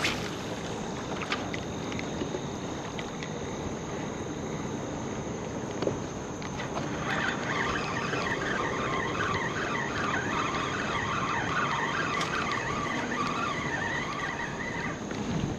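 Water washing against a kayak hull as it moves, over a steady rush of water and wind. From about seven seconds in, a high wavering warble joins for several seconds before stopping.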